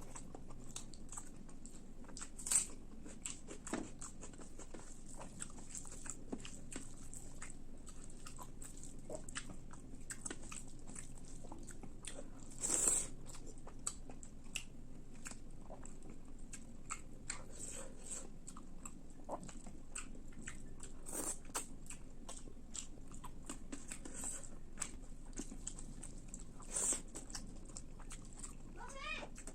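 A person chewing and biting food, with many small wet mouth clicks and soft crunches, and a few louder crunching bites about three seconds in, near the middle and near the end.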